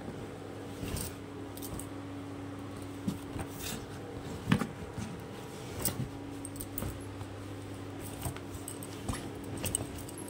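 Bangles clinking in short, scattered jingles as hands rummage through clothes in a suitcase, with cloth rustling and one sharper knock near the middle. A steady low hum runs underneath.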